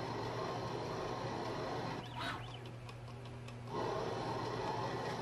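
Small homemade CNC lathe threading a cast iron bar at a slow 100 rpm: a steady spindle hum under the scratchy sound of the threading insert taking a light cut. The cutting sound stops about two seconds in, as between threading passes, and starts again near the four-second mark.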